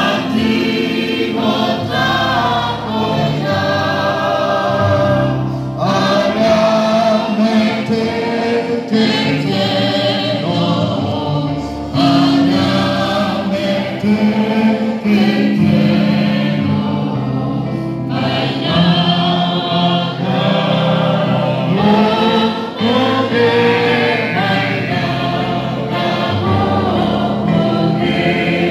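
A church congregation singing a hymn together in Kikuyu, many voices at once, with a song leader singing into a microphone.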